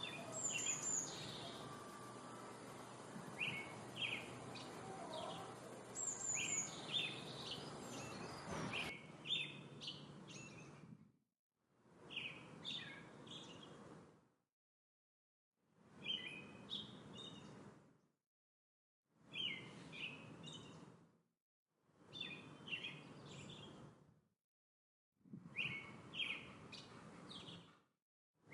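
Songbirds chirping and calling in short, quick phrases over a soft outdoor background. After about nine seconds the sound breaks into repeated two-second bursts of similar chirping, each separated by about a second of complete silence.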